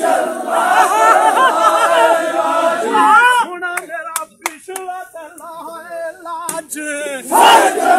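A crowd of men chanting and calling out together as they haul a heavy log: a communal work chant of many overlapping voices. A loud collective shout rises near the end, with a few sharp clicks in the middle.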